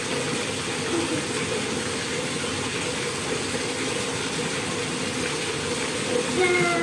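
Bathtub tap running steadily into the tub, an even rush of water. A brief pitched whine sounds near the end.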